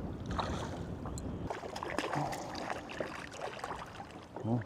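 Steady hiss of wind and water around a small fishing boat, with scattered light clicks and knocks from handling tackle.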